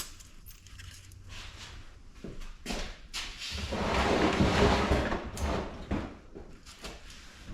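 Scrap metal being handled and set down: a few light knocks, then a scraping, sliding noise lasting a couple of seconds around the middle.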